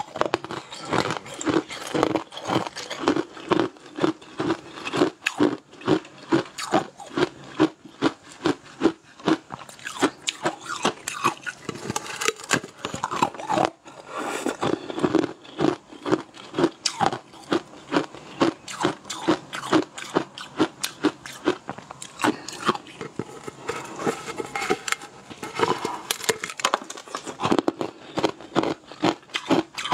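Close-miked eating of a blue fish-shaped jelly sweet: steady chewing at about two chews a second, with many sharp crunchy, wet clicks of bites and mouth sounds throughout.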